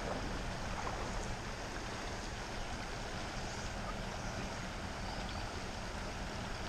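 Steady rush of a shallow river riffle flowing over rocks.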